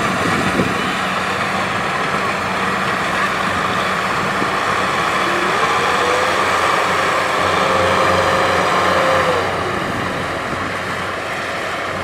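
Steady running of a Kubota DC70 rice combine harvester's diesel engine, with a Kubota M6040SU tractor running close by. A thin whine rises a little past halfway, holds, then falls away.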